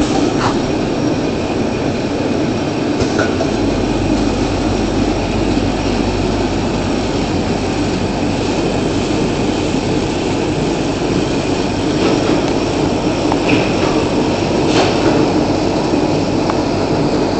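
Automatic scourer (scrubber) making machine running steadily, a continuous mechanical rattle from its wire-knitting mechanism and rollers with a few sharp clicks. A low hum joins about three and a half seconds in.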